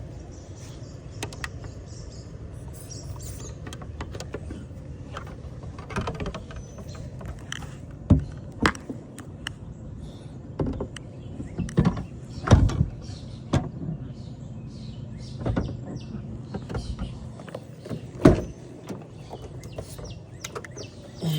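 Long-reach lockout tool worked through a wedged-open car door gap, giving irregular clicks, taps and knocks against the door and interior as it reaches for the inside door handle, over a steady low hum.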